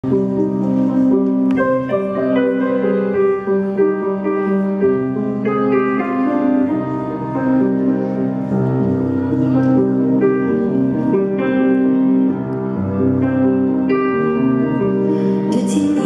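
Slow, gentle instrumental music with long held chords, played over a hall's sound system.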